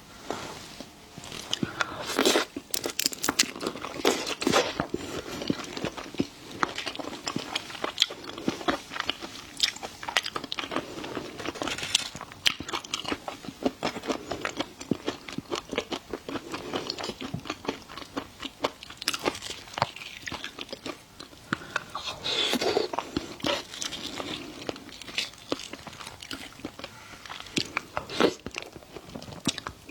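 Close-miked chewing and crunching of seafood, a dense, uneven run of sharp crunches and wet mouth sounds with louder bites now and then.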